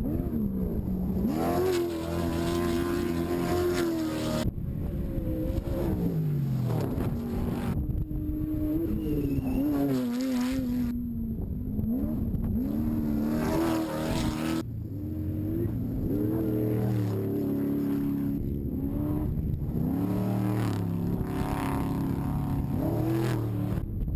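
Desert race trucks' engines revving hard, the pitch climbing and dropping again and again as they accelerate and pass.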